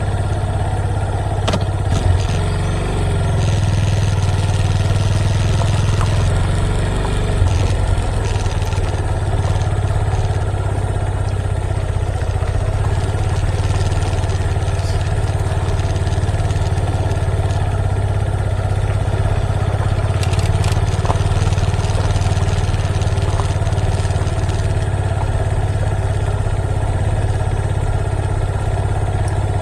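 Motorcycle engine running steadily, with a constant low, even note and no change in speed.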